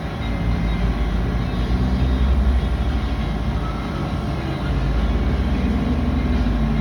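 Hydraulic power unit of a frame-straightening machine running with a steady low drone as the cylinder is pressurised against the truck frame, getting a little louder about two thirds of the way through.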